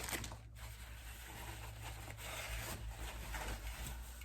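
Faint rustling and rubbing of wrapping being pulled off a packaged drink.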